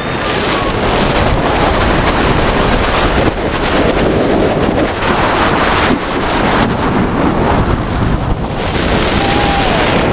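Loud, steady wind rushing over a front-seat camera's microphone as a Kingda Ka train, a hydraulically launched roller coaster, speeds off the launch track and up its vertical tower.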